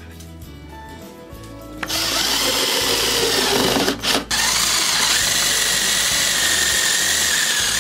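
Power drill boring into wooden boards: it starts about two seconds in, runs loud and dense under load, breaks off briefly near the middle, then carries on with a steady high whine as a large bit cuts into a plank. Faint background music at the start.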